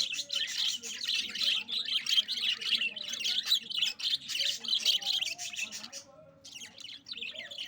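A colony of budgerigars chirping and chattering together, many short overlapping calls at once. The chatter thins and briefly breaks off about six seconds in.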